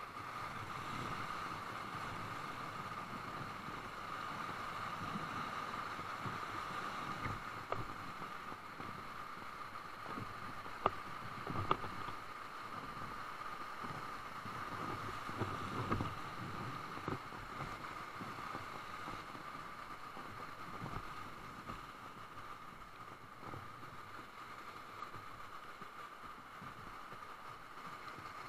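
Whitewater rushing steadily as a raft runs Blossom Bar rapid on the Rogue River at high water, with a few sharp knocks and splashes against the boat between about ten and sixteen seconds in.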